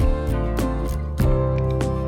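Background music: acoustic guitar with regular plucked and strummed notes.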